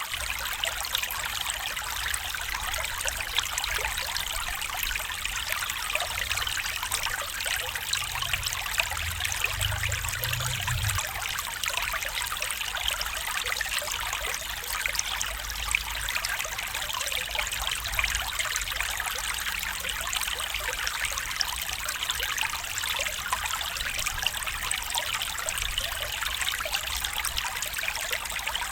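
Small stream trickling and babbling steadily, a dense patter of small splashes over rocks. A faint low rumble rises briefly about a third of the way in.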